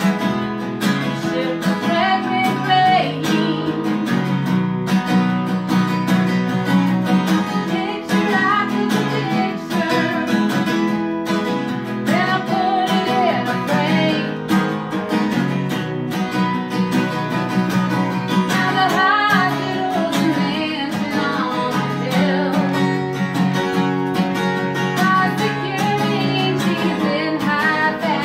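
Live acoustic band music led by a steadily strummed acoustic guitar, with a melody line rising over the chords now and then.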